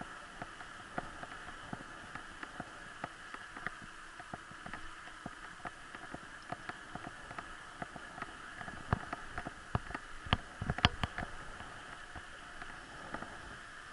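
Bicycle rolling over a worn asphalt path, heard from a camera mounted on the rider or the bike: irregular clicks and rattles from bumps in the surface over a steady rolling hiss. A cluster of louder knocks comes about nine to eleven seconds in.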